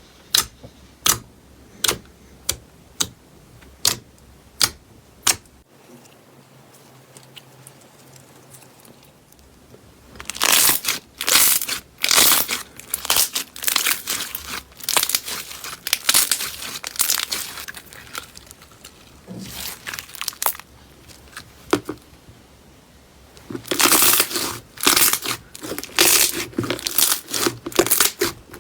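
Slime being pressed and squeezed by hand. It starts with a run of sharp clicks about twice a second, then after a short quiet pause gives dense runs of crackling, popping sounds.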